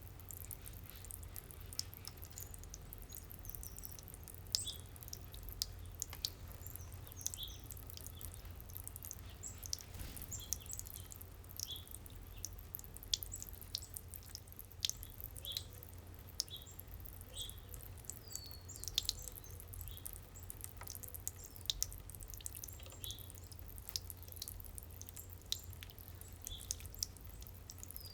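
Garden fountain water dripping and trickling, with many short, high chirps from small birds at the fountain.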